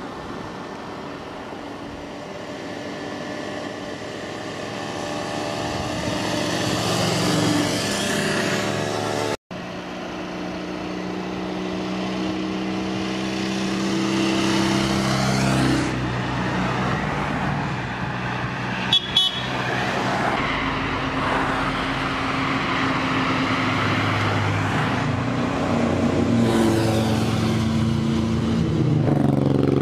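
Vintage Eastern Bloc motorcycles and small cars passing one after another on a road, their engine sounds rising and fading as each one goes by; a Barkas van is approaching near the end. There is an abrupt cut about nine seconds in, and a short sharp sound a little past halfway.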